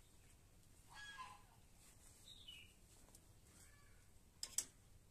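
Near silence with faint bird calls: a short call about a second in, a falling chirp a little after two seconds, and another faint call near four seconds. Just before the end comes a brief, sharp double snap, the loudest sound, as a damp garment is shaken out.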